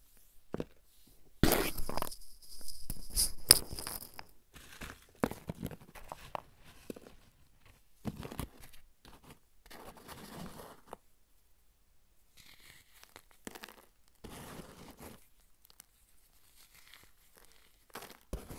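Dry powder chunks ('comet dust') being crushed and crumbled by hand: gritty crunching and crackling, densest and loudest about two to four seconds in, then softer crumbles on and off.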